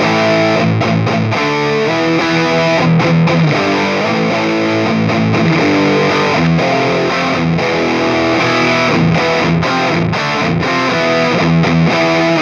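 Electric guitar played through the Flatsons KE1 multi-effects pedal's amp and cabinet simulation, set to its 14th amp model. It plays a continuous riff of picked chords and held notes.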